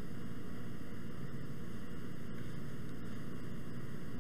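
Steady background hiss with a low hum under it, the recording's room and microphone noise, unchanging and with no other sound.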